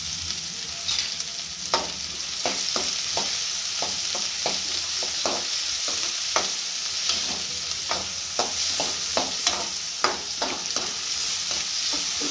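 Chopped onion and bottle gourd sizzling in hot oil in a metal kadhai, with a steel spoon scraping and tapping against the pan as the pieces are stirred. The stirring strokes start about two seconds in and come irregularly, about once or twice a second, over the steady sizzle.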